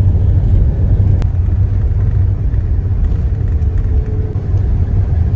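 Steady low rumble of a car driving, heard from inside the cabin, with a single sharp click about a second in.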